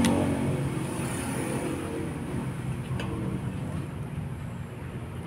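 A motor vehicle's engine rumble, loudest at first and fading away over a few seconds as the vehicle passes and recedes.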